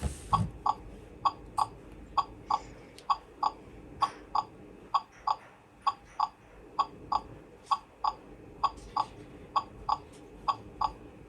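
Electronic sound effect from an interactive toy dragon doctor set: short, high beeps in pairs, repeating steadily at about one pair a second.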